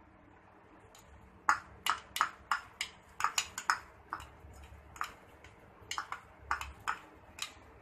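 A metal spoon clinking and tapping against a metal cooking pan and bowl while vegetables are tipped in and stirred: an irregular run of sharp clinks, about two or three a second, starting about a second and a half in.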